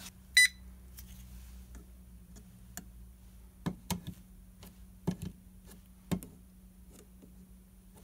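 Pen-style non-contact voltage tester giving one short high beep as it is switched on, then a handful of light taps as its tip touches the outlet and the light switch. No alert beeping follows: the tester shows only its green light, the sign that the circuit is dead.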